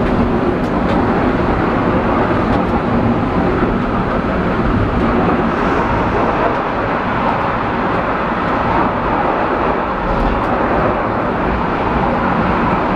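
Penang Hill Railway funicular car running on its rails: a steady rolling rumble of the wheels on the track, with a few faint ticks.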